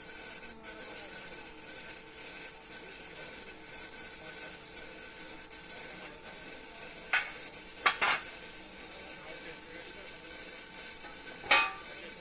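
Electric welding arc sizzling and crackling steadily during 6G-position welding. A few brief sharp sounds break in about two-thirds of the way through and again near the end.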